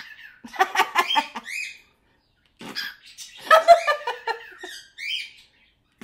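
Grey cockatiel chattering in two bouts, with short rising-and-falling chirps; the second bout is longer.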